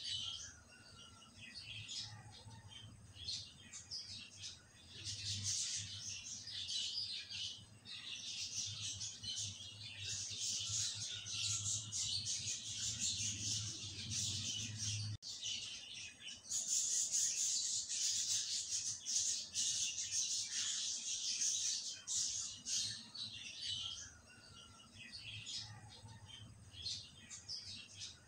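Cream cooking down into ghee in a pan: a dense, high-pitched sizzling crackle of fine bubbles as the water boils out of the butterfat, over a steady low hum. It drops out for an instant about halfway through and is loudest soon after.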